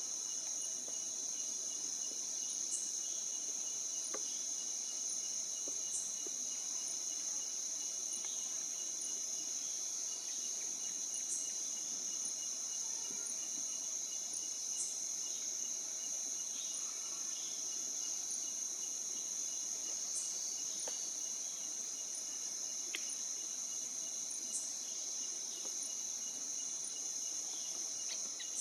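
Steady high-pitched chorus of trilling insects, with a few faint short chirps scattered through.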